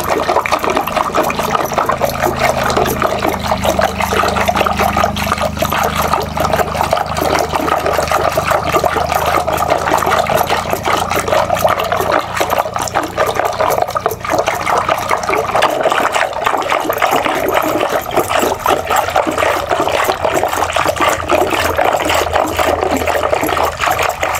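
Wooden churning stick (ravi) spun back and forth in thick mango pulp in a clay pot: continuous fast wet sloshing and splashing as the aamras is churned to dissolve the sugar.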